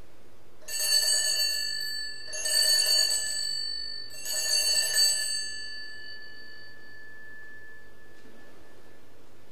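Altar bells rung in three shakes while the chalice is elevated at the consecration, marking that moment of the Mass. Each shake gives a bright jangling ring, and the last rings on and fades away over a few seconds.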